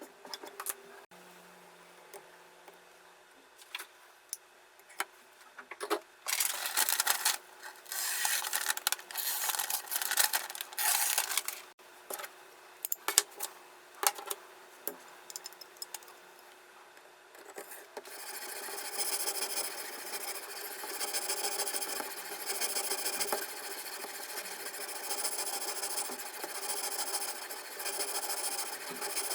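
Diamond sharpening stone rasping along the blade edge of a Victorinox folding knife in a guided sharpening rig. Irregular strokes and clicks come first, then a steady back-and-forth of strokes, roughly one a second, through the last third.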